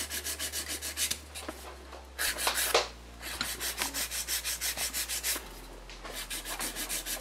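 Hand nail file rasping back and forth over an acrylic nail in quick, even strokes, several a second, in runs broken by short pauses: shaping and filing the freshly set acrylic.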